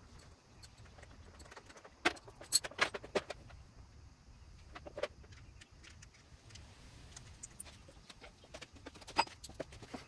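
Metallic clinks and clicks of hand tools and metal parts being handled while working on a scooter's front fork and brake. A burst of sharp clinks comes about two to three seconds in, with single clicks about five and nine seconds in.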